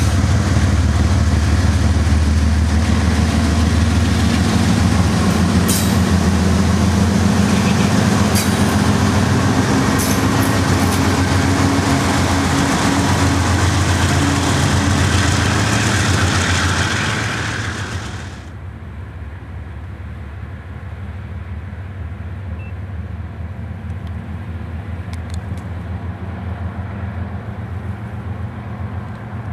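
A CSX coal train's GE diesel-electric locomotives passing close by: a loud, steady low engine drone with wheels rolling over the rails and a few sharp clanks. About 18 seconds in it changes abruptly to a quieter, distant low rumble of the train.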